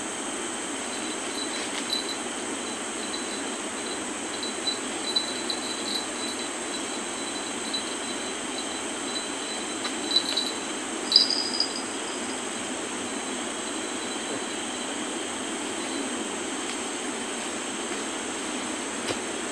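Steady insect drone in several high, unchanging tones over a low steady hiss, with a run of short high chirps that peak about halfway through.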